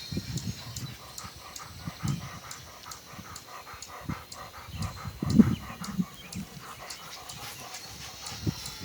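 German shorthaired pointer panting hard in quick, even breaths, about four a second, winded from running. There are several low bumps, the loudest about five and a half seconds in.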